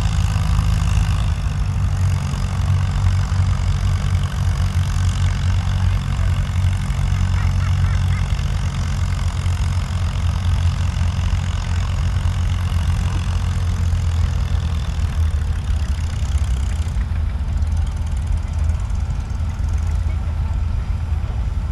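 Farm tractor engine running steadily at idle, a low rumble that holds even with no rise or fall in speed.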